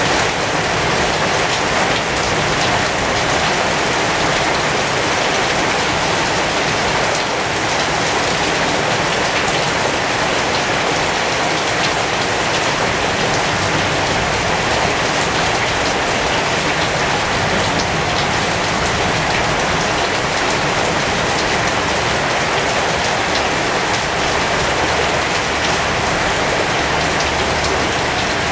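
Heavy rain falling steadily on the wet leaves and blossoms of a pomegranate tree, an even wash of drops on foliage with no break in strength.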